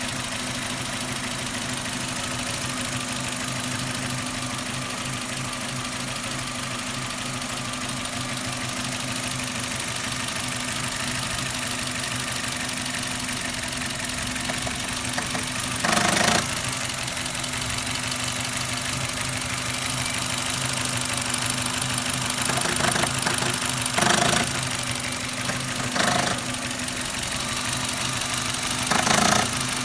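Suzuki Ignis's M13A 1.3-litre four-cylinder engine idling steadily with a foreign knocking noise in it, the unexplained knock the owner is trying to diagnose by ear. A few short louder bursts break the steady running in the second half.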